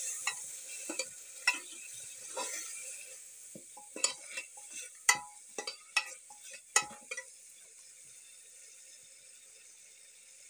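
Metal spoon scraping and knocking against the sides of a pressure cooker as a masala is stirred, over a steady sizzle of frying that slowly fades. The stirring strokes stop about seven seconds in, leaving only a faint sizzle.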